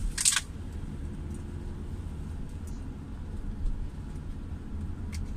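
A car driving on a wet road, heard from inside the cabin: a steady low rumble of road and engine, with one short, sharp hiss about a quarter second in.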